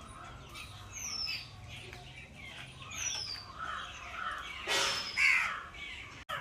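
Several birds chirping and calling together, with a whistled call that falls in pitch repeated about every two seconds. A louder burst and a strong call come about five seconds in.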